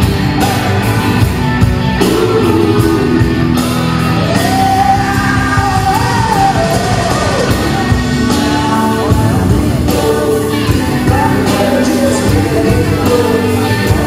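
A rock band playing live in a large hall, with electric and acoustic guitars, keyboard and drums, and a singing voice rising and falling over the band.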